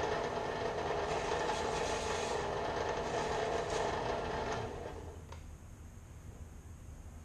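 Klutch 4x6 metal-cutting bandsaw running in horizontal mode, its blade cutting through metal stock with a steady rasping drone. The cutting noise drops away about five seconds in, leaving a faint hum.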